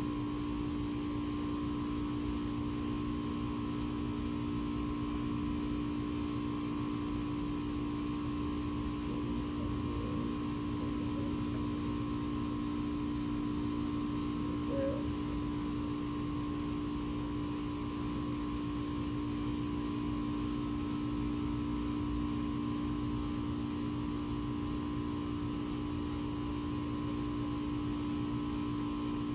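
A steady hum holding a few constant tones, unchanging in level throughout.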